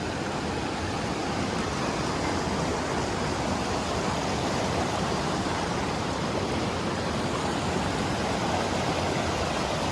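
Steady rush of a fast-flowing river over rocks, an even hiss of water.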